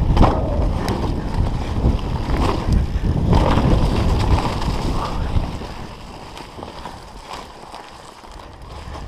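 Wind buffeting the microphone and mountain bike tyres rumbling over a wet, muddy forest trail at speed, with scattered clicks and rattles from the bike. The loud rush dies down about five seconds in, leaving a quieter rolling rumble.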